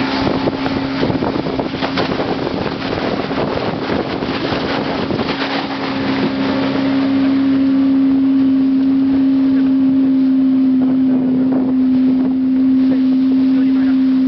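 Boat engine running with a steady, constant hum, under wind and rushing water for the first half. About halfway through the rushing fades and the hum grows louder.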